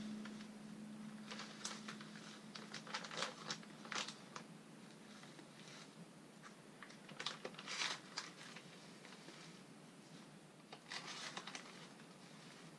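Plastic bags crinkling and rustling as they are handled, with light scrapes of powder being spooned from a small glass jar, in short scattered bursts.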